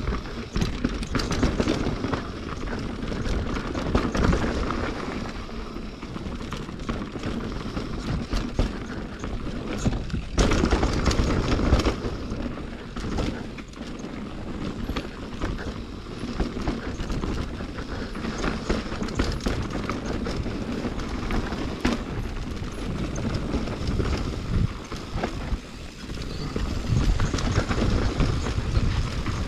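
Mountain bike descending a natural enduro singletrack: tyres rolling over dirt, roots and stones, with the bike rattling and knocking on frequent impacts.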